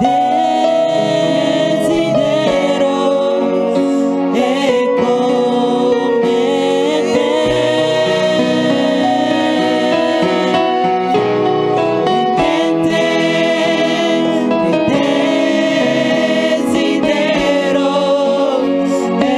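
Gospel worship music: sung vocals over sustained instrumental backing.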